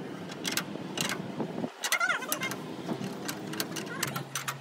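Irregular sharp clicks and knocks, with a low steady hum starting near the end.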